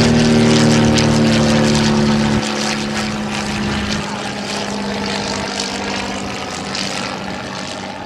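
Fairchild PT-23 trainer's seven-cylinder radial engine and propeller running as the plane flies past: the pitch drops slightly about two and a half seconds in and the sound fades as it goes away.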